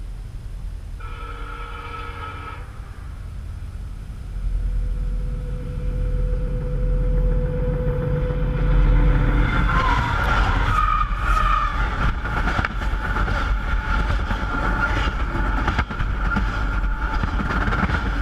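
A train approaching and passing very close over the tracks. A low rumble builds from about four seconds in, and from about ten seconds in it gives way to rapid wheel clatter over the rails with a steady high-pitched ring.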